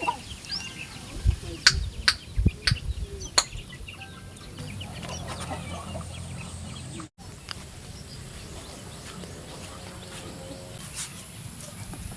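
Domestic chickens clucking, with a few sharp knocks in the first few seconds.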